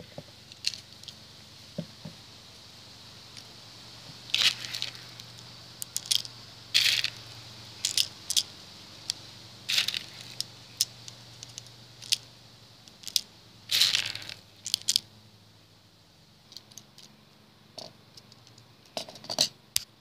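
Irregular plastic clicks and short rattles, some sharp and loud, from handling an airsoft M1911A1 pistol, its magazine and plastic BBs.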